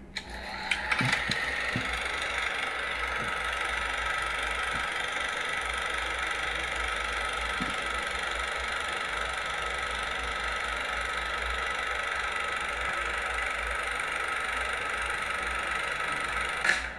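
A steady whirring hiss with a few faint clicks early on, cutting off suddenly near the end.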